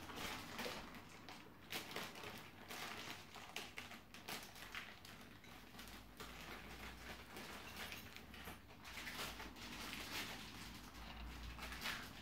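Faint scattered rustling and light clicks of small things being handled, in a small room.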